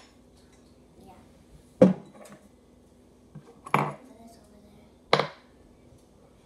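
Three sharp knocks of a utensil against a plastic measuring jug of slime mixture, a second or two apart.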